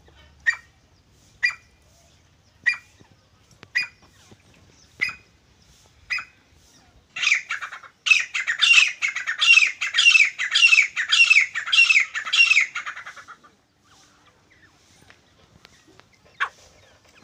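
Grey francolin (desi titar) calling. First comes a string of single sharp notes, about one a second. From about seven seconds in there is a loud, fast run of repeated ringing calls lasting about six seconds, and one last single note comes near the end.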